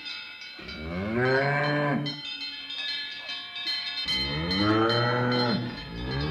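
Dairy cows mooing: two long, low moos that rise and fall in pitch, the first about half a second in and the second about four seconds in, over a faint steady high ringing.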